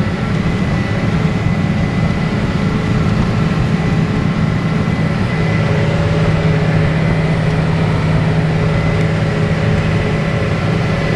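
Tractor engine running steadily under load, a low drone with a few steady whining tones above it.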